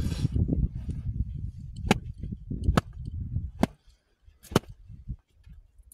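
Four sharp slaps on the hard, sand-crusted crust of a sand-baked flatbread, about one a second, as the sand is beaten off it. A short rustle comes at the start and a low rumble runs under the first slaps before fading out.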